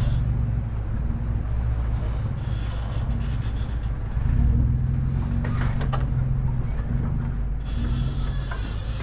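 Off-road 4x4's engine running steadily, swelling slightly a little before the middle, with a few light knocks about halfway through and near the end.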